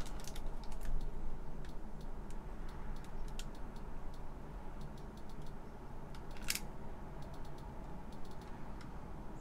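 Scattered light clicks, the loudest about six and a half seconds in, as a bench power supply's voltage control is dialled up in one-millivolt steps. A low steady hum runs underneath.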